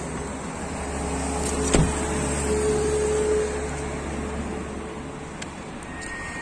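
Steady car and road noise with a low hum that swells and then fades in the middle. There is a single sharp thump about two seconds in and a short faint beep near the end.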